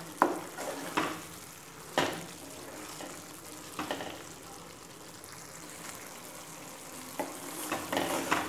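Thick mutton gravy sizzling in a kadai while a wooden spatula stirs it, with short scrapes of the spatula against the pan, several coming close together near the end.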